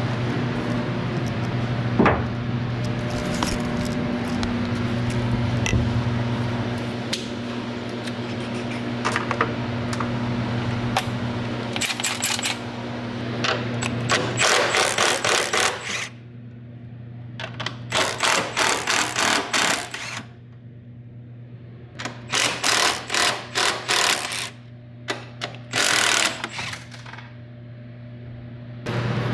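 Impact wrench hammering in four short bursts of a second or two each, starting about halfway in, as suspension fasteners on the front coilovers are loosened. Before that, a steady low hum with scattered metal clinks of tool handling.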